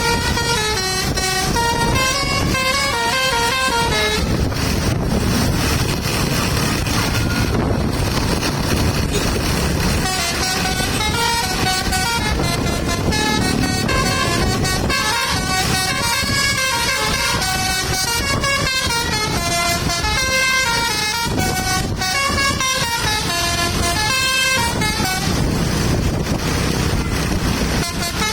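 Basuri telolet bus horn, a set of air horns playing a melody of stepped notes. The tune breaks off for several seconds after about four seconds, leaving a low rumbling noise, then resumes.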